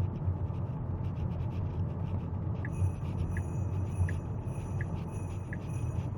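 Steady low road and tyre rumble inside a Tesla's cabin while it drives. About two and a half seconds in, a regular electronic ticking starts, roughly one tick every 0.7 s, over a faint steady high tone.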